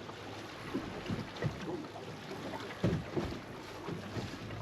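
Water slapping and lapping against a boat's hull in short irregular splashes over a steady wash of wind and sea.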